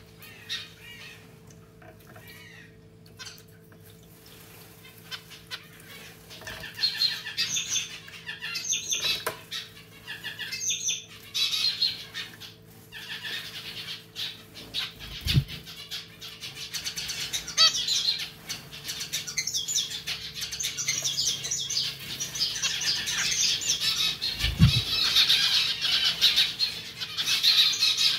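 Zebra finch bathing in a pet drinking fountain: rapid wing-fluttering and splashing of water in short bouts, starting about six seconds in and getting busier toward the end. The fountain pump hums steadily underneath, and two dull low thumps come about halfway and about three-quarters of the way through.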